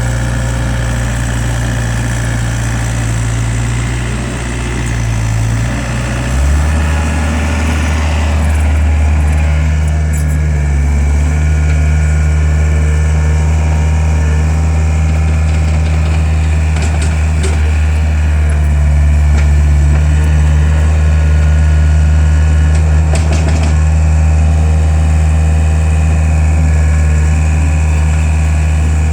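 Skid steer loader engine running steadily, its note stepping up to a higher speed about six seconds in and holding there.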